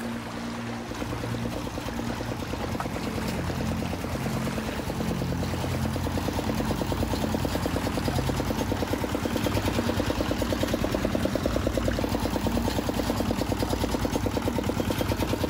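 Farm tractor's diesel engine running under load with a fast, even pulsing, towing a laden trailer through floodwater, with water churning around the wheels. The pulsing grows louder about halfway through.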